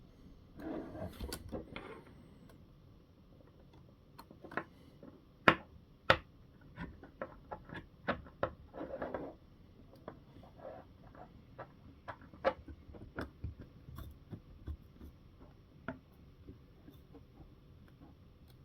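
Small hand tools and metal hardware clicking and tapping irregularly as small nuts are tightened onto RC car suspension links. There are a couple of short scraping or rustling stretches, about a second in and around nine seconds.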